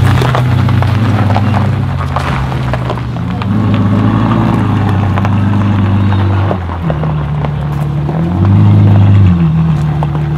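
Novitec Ferrari F12 N-Largo S's V12 engine idling through its exhaust, with two short revs that rise and fall, about four seconds in and again near the end.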